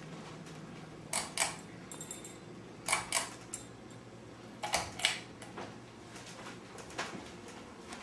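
Pull-chain switch on an old Encon Contempra ceiling fan, pulled three times, each pull a quick double click with a light chain rattle. Under it the fan motor hums steadily.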